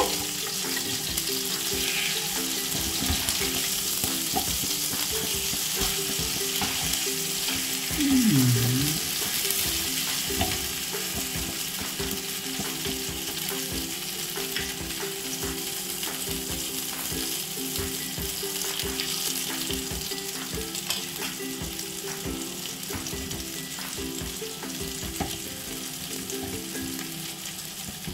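Spice-marinated pomfret fish shallow-frying in hot oil in a flat pan: a steady sizzle that slowly quietens, with a metal spatula scraping and turning the fish. A brief falling tone cuts through about eight seconds in.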